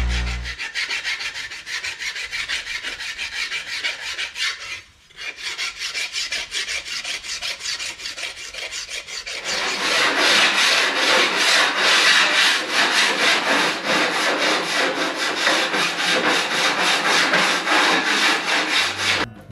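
Hand deburring of aluminum aircraft spar parts: a file rasping in quick, even back-and-forth strokes, several a second. The strokes stop briefly about five seconds in and grow louder and fuller about ten seconds in.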